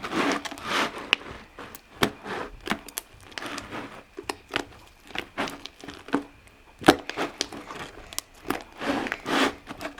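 Hands kneading and squeezing a large batch of glue-and-saline slime in a bowl: irregular sticky squelches with small pops and crackles.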